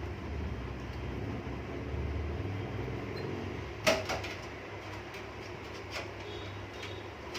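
Sharp metallic clicks and knocks from handling the rear I/O shield and computer cabinet, with one loudest knock about halfway through and a few lighter clicks after it, over a low steady hum.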